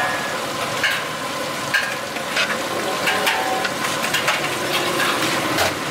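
Hot oil sizzling steadily around battered pieces frying in a wide, shallow pan, with light taps about once a second.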